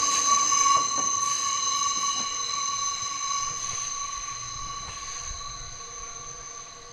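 A train's wheels squealing on the rails, a steady high-pitched ring that fades as the train moves away.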